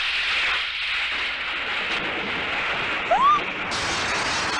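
Cartoon sound effects: a steady rushing noise as the villain bursts in, then glass shattering about three and a half seconds in.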